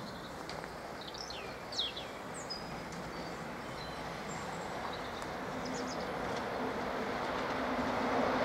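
DB Class 115 electric locomotive and its coaches approaching on the rails, a growing rumble that gets steadily louder, with a low steady hum joining about halfway. Birds chirp in the first couple of seconds.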